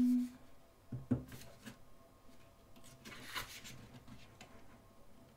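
Thick, card-like photo-book pages handled and turned by hand: two soft taps about a second in, then a papery swish of a page turning a little past three seconds, with faint rubbing in between.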